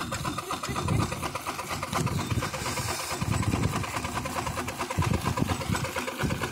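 Scale-model steam traction engine running, with a fast, even beat of exhaust chuffs and mechanical clatter.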